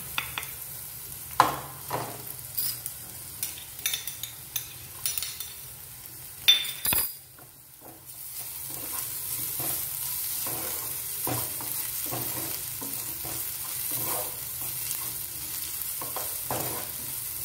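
Chopped onions frying in oil in a frying pan, a spatula scraping and knocking against the pan as they are stirred, over a hiss of sizzling. The onions are being browned slowly on low heat; the knocks come thick in the first half, and after a short lull the sizzle runs steadier with softer stirring strokes.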